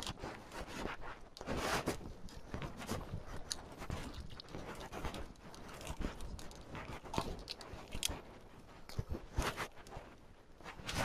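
Irregular knocks, clicks and rustles of fishermen handling gear at the side of a small outrigger fishing boat, with no steady rhythm.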